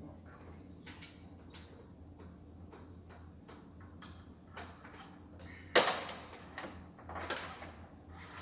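Scattered clicks and knocks of objects being handled, with one loud sharp knock and a rattling clatter about six seconds in, over a steady low hum.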